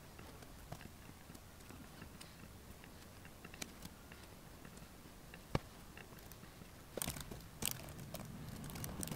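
Scattered clicks of a laptop's keys and trackpad over a quiet room: a single sharp click about halfway through, then a quick run of taps near the end.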